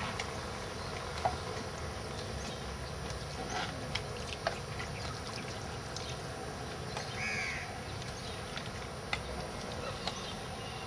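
Steady outdoor background noise with a few scattered light knocks and one short bird call about seven seconds in.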